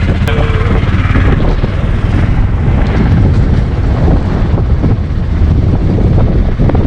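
Auto-rickshaw engine running under way, a steady low rumble, with wind buffeting the microphone.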